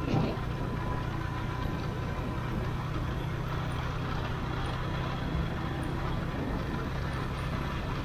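Motorcycle engine running steadily under way, with wind and road noise over it, and one short thump right at the start.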